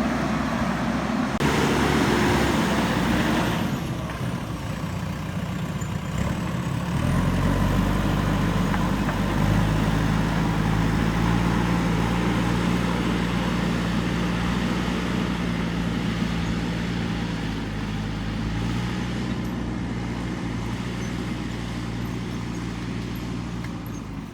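A backhoe loader's diesel engine running under work, rough and noisy for the first few seconds, then settling into a steady engine drone from about seven seconds in.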